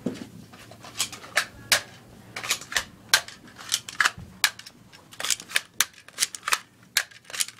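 Plastic toy Nerf blaster clicking and clacking as it is primed and fired over and over: a quick, uneven run of sharp snaps, about two or three a second, starting about a second in.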